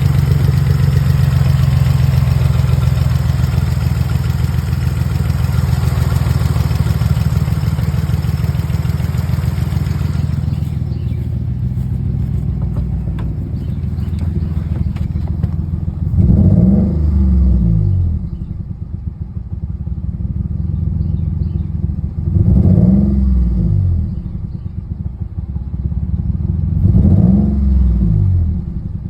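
Nissan 350Z's 3.5-litre V6 idling, with three short throttle blips, each rising and falling in pitch, at about 16, 22 and 27 seconds. The engine has a misfire that new spark plugs and coils have not cured. A high hiss over the idle stops about ten seconds in.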